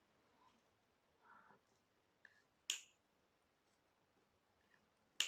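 Hand cutter snipping, two sharp snips about two and a half seconds apart, with a faint rustle between.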